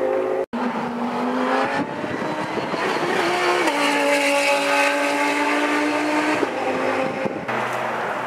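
Audi R8 LMS GT3 race car's V10 engine running hard as the car drives past, holding a steady high note, with an upshift, a step down in pitch, about three and a half seconds in.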